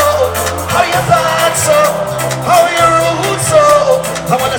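Soca music: a sung male vocal line over a steady bass.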